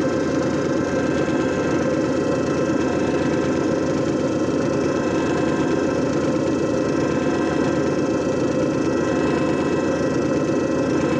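JFJ Easy Pro disc repair machine running steadily, its motor spinning a disc against the repair pad with an even, unchanging hum.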